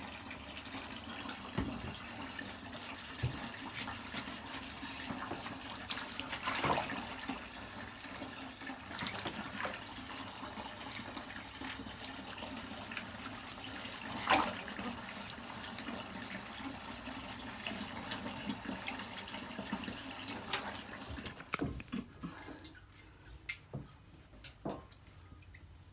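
Bath water running and sloshing in a bathtub as a puppy is washed, with a few louder splashes. The water sound stops about 22 seconds in, leaving a few light knocks.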